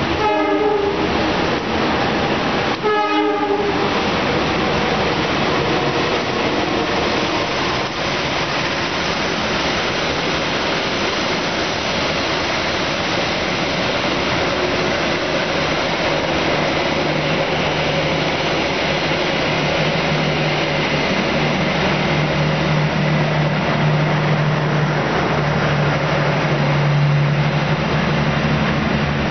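Train horn sounding two short blasts, then the steady rumble and wheel noise of a passenger train passing close by. A low steady drone joins in about two-thirds of the way through.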